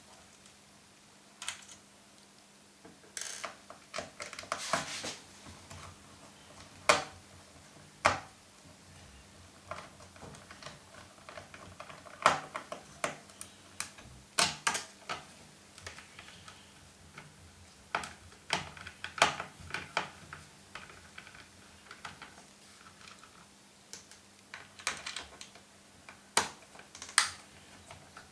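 Irregular small clicks and taps of a hand screwdriver working out the hard-drive bay screws on the plastic underside of an HP 630 laptop, with a few sharper clicks now and then.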